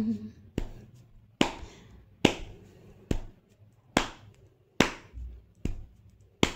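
Hand striking out the tala of a Carnatic song: eight sharp, even strikes, about one every 0.85 seconds.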